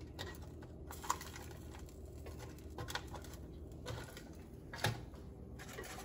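Metal kitchen tongs clicking and tapping against an air fryer basket and its foil lining as pieces of fish are turned: a few light, scattered clicks, the sharpest about a second in and again near the end, over a low steady hum.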